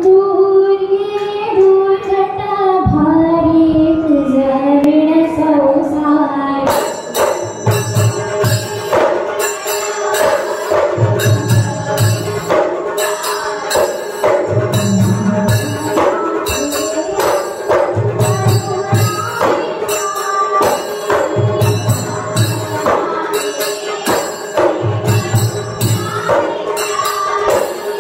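A woman's voice sings the opening line of a Marathi aarti to Durga unaccompanied, then about seven seconds in the Goan ghumat ensemble enters: ghumat clay-pot drums and samel drum beating a fast rhythm with deep strokes every few seconds, and kansale hand cymbals clashing continuously under the singing.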